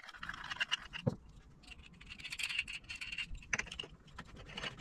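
An MDF adjustable spacer being handled and turned: irregular small clicks and scrapes of the disc and its threaded steel bolt against the wooden block, with one low knock about a second in.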